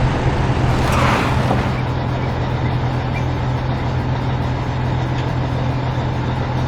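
Excavator diesel engine running steadily at a low drone, with a brief noisy crash about a second in.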